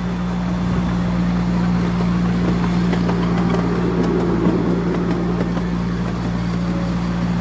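Miniature railway train running: a steady low drone with a rumble of noise over it.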